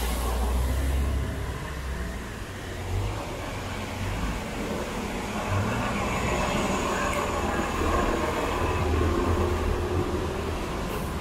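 City bus engine idling at the curb: a steady low rumble, with the wet hiss of street traffic.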